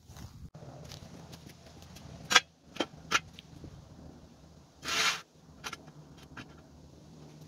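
Sharp metallic clinks and knocks from hand work under a car, three close together a little over two seconds in, then a short scraping rustle about five seconds in and a few lighter clicks.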